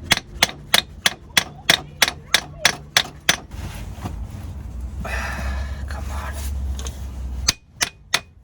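Hand hammer striking metal, knocking a van's drive shaft out of the front hub: a quick run of sharp blows, about four a second, then a rougher rattling stretch, then more blows that ring near the end.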